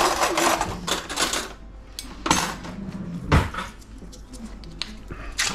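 Kitchen utensils and dishes being handled while food is prepared: about a second of scraping and rustling at the start, then a few separate knocks, the loudest about three and a half seconds in.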